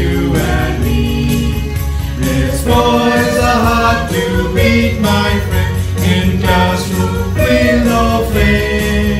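A choir singing with instrumental accompaniment over a steady bass, holding long notes.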